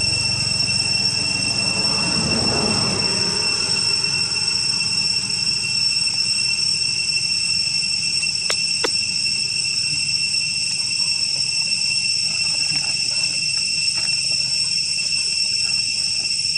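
Insects droning: a steady high-pitched whine that does not break, with two short clicks about halfway through.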